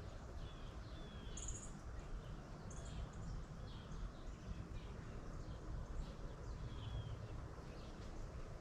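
Scattered short bird chirps and calls over a steady low rumble of outdoor ambience, with two brief high buzzy notes about a second and a half in and again near three seconds.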